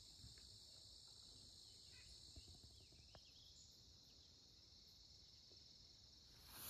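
Near silence, with a faint, steady, high-pitched chorus of crickets and other insects.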